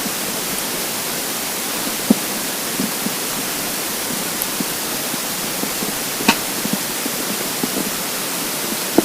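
Empty stomach gurgling from hunger: scattered short, low gurgles and pops, with one sharper click a little past halfway, under a steady loud hiss.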